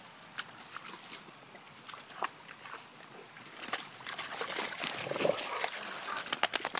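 Weimaraners wading and splashing through shallow water, with scattered splashes that get busier and louder from about four seconds in.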